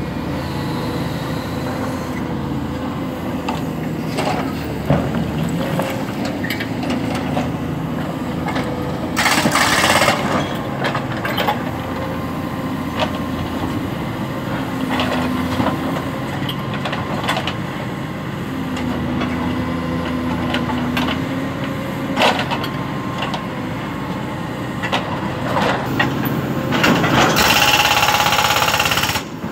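Cat 320 hydraulic excavator's diesel engine running under load, its pitch rising briefly a few times as the hydraulics work, with occasional knocks of rock. Its steel bucket scrapes and crunches into broken rock twice: about ten seconds in and again near the end.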